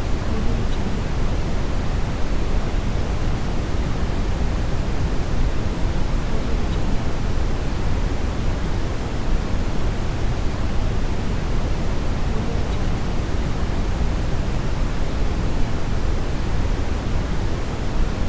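Steady synthetic test-signal noise, an even hiss heavier in the low end and falling off toward the highs, with no pitch or change throughout.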